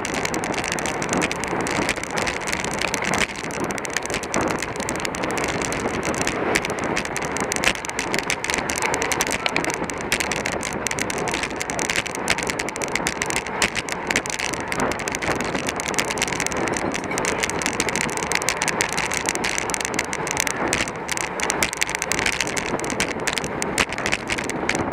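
Road bicycle ridden at race speed: a steady rush of wind on the microphone with tyre and road noise, dotted with frequent small clicks and rattles.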